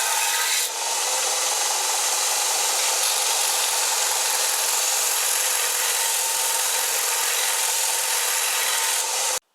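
Cheap Powercraft belt sander running steadily, a loud even whirr with a faint motor hum, starting and cutting off abruptly.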